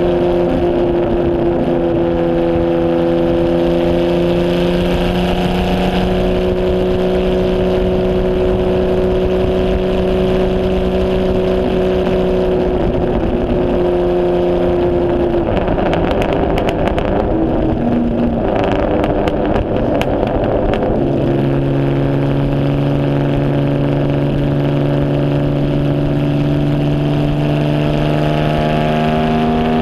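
1951 HW Alta-Jaguar's Jaguar straight-six running on track, heard from its open cockpit: the engine note holds and slowly climbs, drops away about halfway with a few seconds of rough crackling as the driver lifts off, then pulls again at lower revs and climbs slowly.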